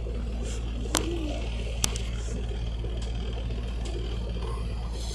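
A boat's engine running steadily with a low hum, with two sharp clicks about one and two seconds in.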